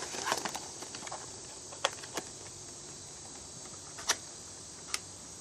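Packaging being handled while a smoke alarm's box is opened: a cluster of light clicks and taps in the first second, then a few single sharp clicks.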